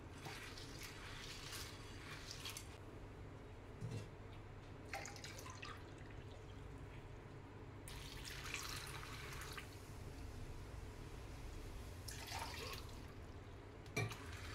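A hand swishes dried peas in a bowl of water, then water is poured from a glass over the dried peas twice, about eight and twelve seconds in. Two light knocks come between, near four seconds and at the end.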